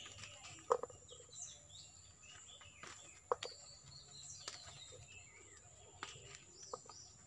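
Small birds chirping and calling throughout, over a faint steady high whine. Three short sharp knocks stand out, spaced a few seconds apart, as lovi fruits are plucked from the branch and dropped into a wicker basket.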